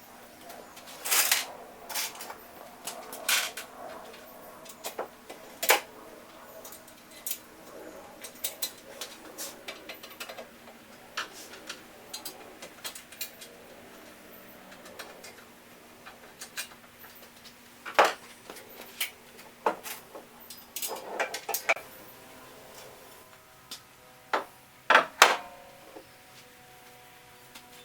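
Metal parts and tools clinking and clanking during hand assembly of a small CNC router, sharp knocks at irregular intervals with the loudest near the end. A faint steady hum runs underneath.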